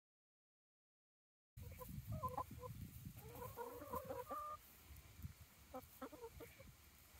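Dead silence for about a second and a half, then a flock of hens clucking in short, repeated calls as they feed on figs, with a low rumble underneath.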